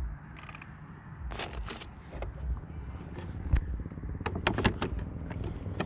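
Motorcycle rider seat being worked back onto its mount: scrapes and a string of light clicks and knocks as it is shifted and pressed into place.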